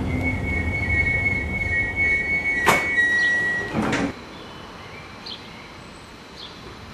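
Passenger train running slowly into a station, heard from on board: low rumble with a high steady wheel squeal and two sharp knocks. About four seconds in it cuts off to a quieter outdoor background with a few faint short chirps.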